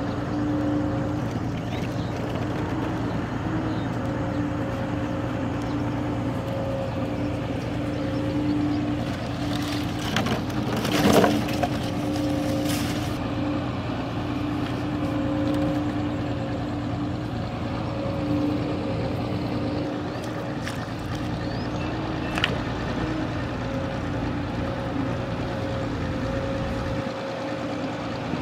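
A steady low machine hum with faint steady tones running through it. A short loud noise comes about eleven seconds in, and a sharp click about twenty-two seconds in.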